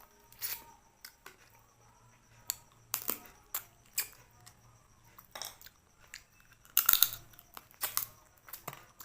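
Close-up eating sounds: a person chewing and crunching food in irregular sharp cracks and clicks, the loudest crunch about seven seconds in.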